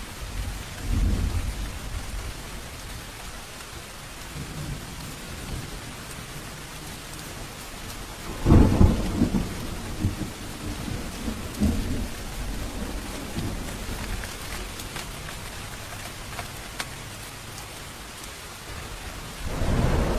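Steady rain with rolling thunder. A faint rumble comes about a second in; about eight seconds in a loud thunderclap rolls on for several seconds, and another roll begins near the end.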